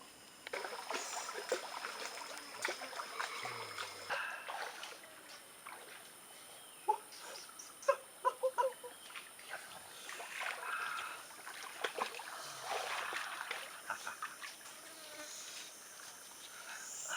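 Water splashing and trickling in irregular bursts, with scattered sharp clicks and knocks.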